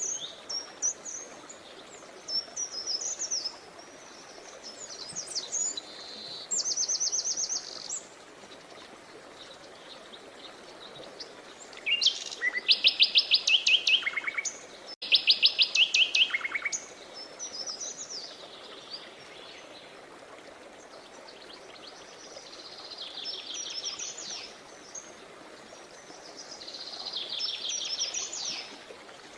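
Songbirds singing in turn over a steady hiss of flowing water. The loudest are two fast trills of rapidly repeated notes about halfway through, with shorter chirping phrases before and after.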